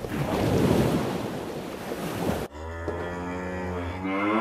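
Ocean waves surging on a shore, cut off suddenly about two and a half seconds in by a cow mooing: one long, low call that rises in pitch near the end.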